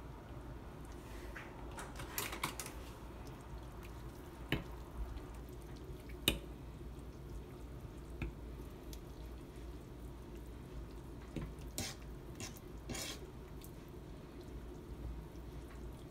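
Hair weave being pushed down by hand into a pot of hot water: quiet sloshing with a scattering of short, sharp splashes and taps against the pot, over a low steady hum.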